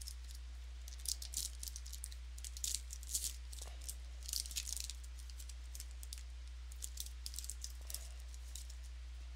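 Sports trading cards and their foil pack wrappers being handled: crinkling and rustling in short bursts, with a steady low electrical hum underneath.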